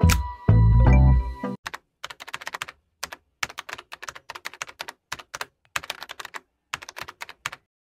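Bass-heavy music that cuts off about a second and a half in, followed by typing on a computer keyboard: irregular key clicks in short runs with brief gaps between them.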